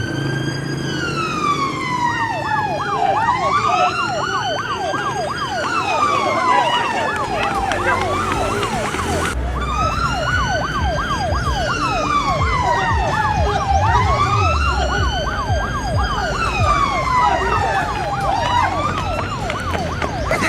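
Electronic police siren sounding continuously: a slow rising-and-falling wail with a fast warbling yelp layered over it.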